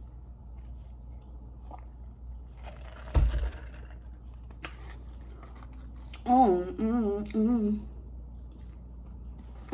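A woman humming a short wavering tune in three brief phrases, about six seconds in. A dull thump comes about three seconds in, with a small click shortly after.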